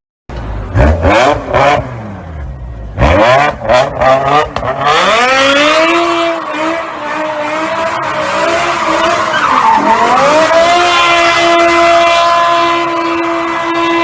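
BMW M5 engine revved hard in two quick groups of blips, then held at high revs with the pitch rising and falling. The note dips briefly near the ten-second mark, then holds a steady high note. A hiss of tyre squeal runs under it, typical of a drift.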